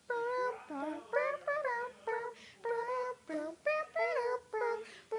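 Children singing in high voices without clear words: short, choppy notes and pitch swoops between sung lines.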